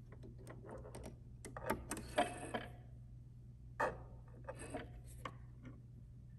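Quiet scattered clicks and rustles of fingers and thread at a sewing machine's needle as it is threaded by hand, over a faint steady low hum.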